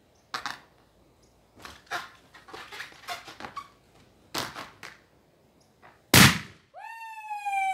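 A 24-inch clear latex balloon scratched with fingernails in a few short strokes, then bursting with one loud bang about six seconds in. A woman's long cry, falling in pitch, follows the pop.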